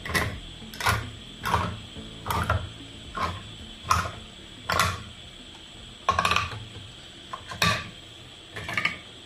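Manual tin opener being cranked around the rim of a metal can, a short crunching click with each turn of its knob, about ten turns at a slow, uneven pace.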